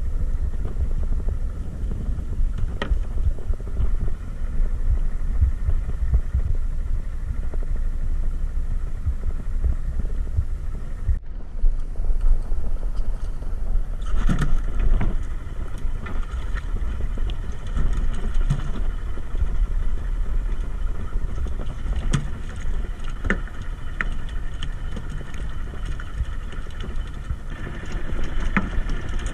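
Steady low rumble of wind on the microphone and boat noise at sea. From about halfway, scattered knocks and thumps as a small fish is swung over the fibreglass gunwale and handled on the deck.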